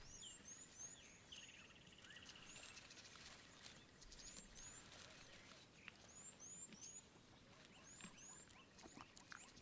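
Faint wildlife ambience: short high chirps repeating in small clusters, a buzzy trill from about one to three seconds in, and scattered soft clicks.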